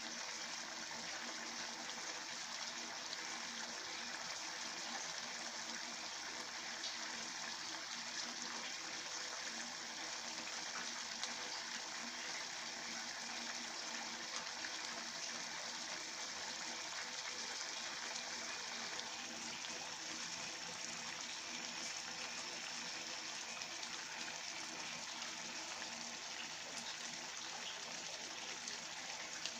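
A pot of laing, taro leaves and dried fish in coconut milk, boiling hard with a steady bubbling and fine popping.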